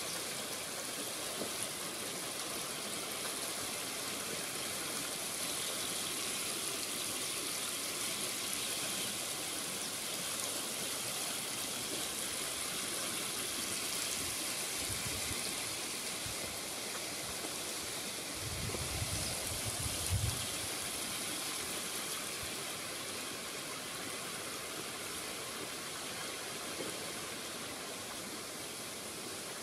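River water rushing and splashing over shallow rocks at the shore of a rapid, a steady continuous wash. A few brief low thumps come about two-thirds of the way in.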